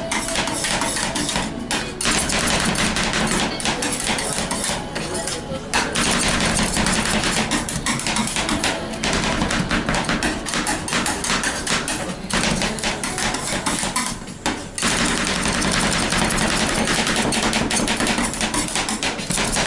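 Two metal spatulas rapidly chopping and scraping on the metal cold plate of a fried (rolled) ice cream machine, breaking Kit Kat, Oreo and strawberry into the freezing ice cream base. A fast, continuous clatter of strikes with a few brief pauses.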